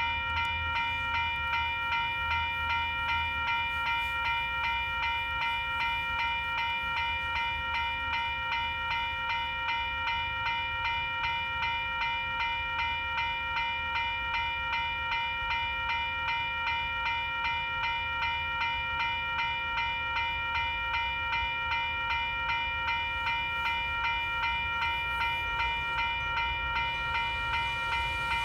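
Electronic railroad crossing bell ringing continuously in quick, evenly repeated strokes, with a low rumble of a train underneath.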